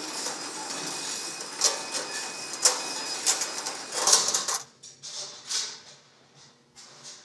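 Steel roll-up garage door being hauled open by its hand chain, the chain rattling and clanking irregularly. It stops about four and a half seconds in, leaving only a few faint ticks.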